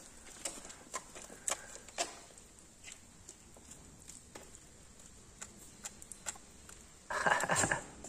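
Holstein calf suckling at the cow's udder: scattered soft smacking and sucking clicks. A short, louder voice-like burst near the end.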